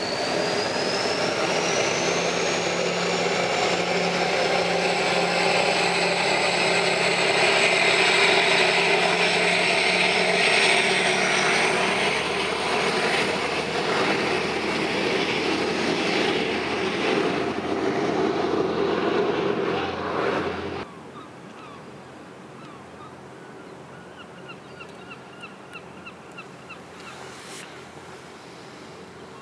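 Loud engine noise with a high whine that rises in pitch over the first few seconds, then runs steadily and cuts off abruptly about 21 seconds in. After that there is only a faint background hiss with a few light ticks.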